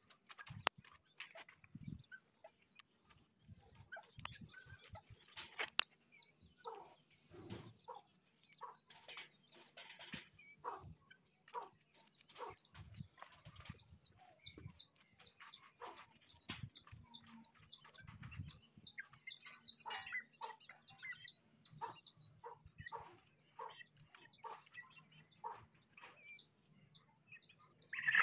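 Chickens in a wire coop with brief bursts of wing flapping and low clucks, over a steady stream of rapid high chirps, several a second. Sharp clicks and knocks are scattered throughout.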